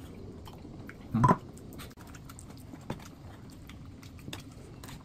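Eating sounds: a metal spoon and chopsticks clicking and scraping against a metal baking tray as cottage pie is scooped out, with one brief louder sound about a second in.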